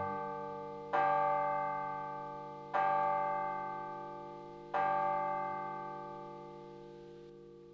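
A bell struck three times, about two seconds apart. Each stroke rings on and slowly dies away, and the last is left to fade.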